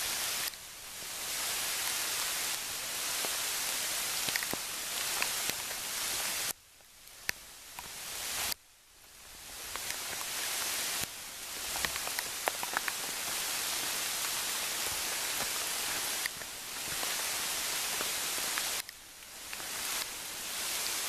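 Rain falling on leaves and the ground: a steady hiss with scattered ticks of drops. It cuts out abruptly a few times and swells back.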